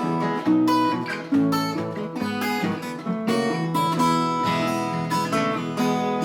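Acoustic guitar picking and strumming an instrumental passage between verses of a folk song, one plucked note and chord after another.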